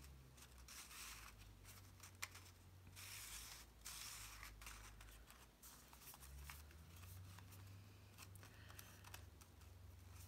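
Faint rustling and light clicks of a cardstock iris shutter being handled and its paper tabs pressed down.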